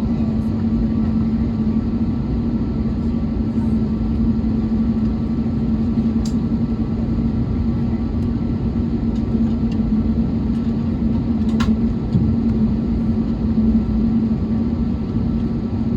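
Steady low rumble inside an Airbus A321neo cabin on the ground, with a constant droning hum from the aircraft's engines and air systems. There are a couple of faint clicks, one about six seconds in and one just under twelve seconds in.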